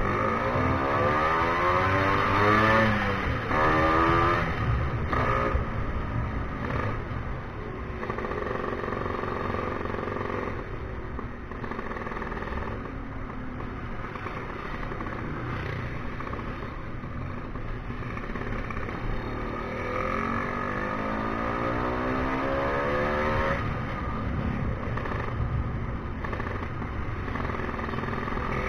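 Tuned-up Vespa scooter engine under way. It revs up hard over the first few seconds and drops off sharply, then runs at a steadier pitch. From about twenty seconds in it climbs again, falls away suddenly and starts rising once more near the end.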